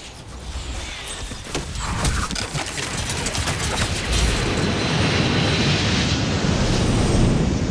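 Cinematic demo sound effects. A flurry of sharp crackles and ticks gives way to a deep rumbling roar that builds and holds, easing off near the end.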